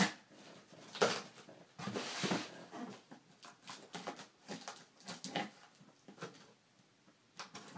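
Shipping box being opened by hand: scattered taps, scrapes and rustles of cardboard and packaging, with a short tearing or ripping noise about two seconds in.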